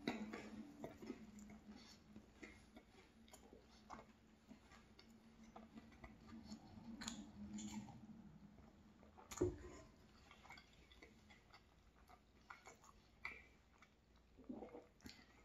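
Quiet close-up chewing of a flaky almond croissant: soft wet mouth clicks and smacks, with a sip from a mug of hot chocolate around eight seconds in. About nine and a half seconds in there is a single knock, as the stainless steel travel mug goes back down on the wooden board.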